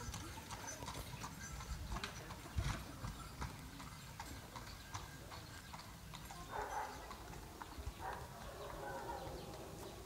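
Hooves of a horse pulling a carriage clip-clopping along a road, roughly two hoofbeats a second.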